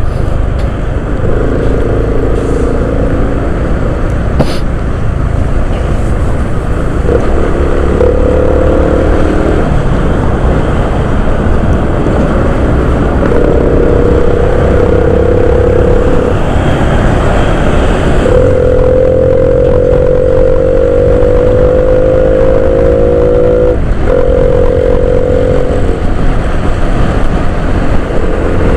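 Motorcycle engine on a stock muffler running under way, mixed with heavy wind rumble on the microphone. The engine's note comes and goes several times, and rises slowly in pitch for about five seconds past the middle as the bike accelerates.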